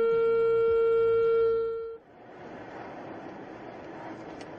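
A car horn held down in one long steady blast, cut off abruptly about two seconds in. It is followed by the quieter, even road noise of a moving car.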